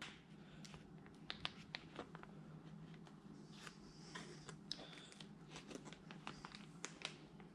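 Near silence under a faint steady low hum, with scattered faint crinkles and ticks from a foil packet of rubbing compound being handled over a foam polishing pad.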